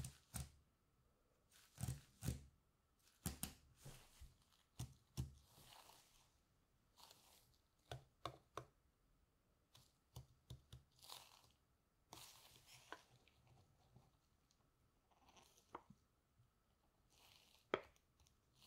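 Soft handling sounds of a plastic yogurt cup in rubber-gloved hands: scattered light taps and clicks as it is picked up, turned and set against the tabletop, with brief rustles of the gloves.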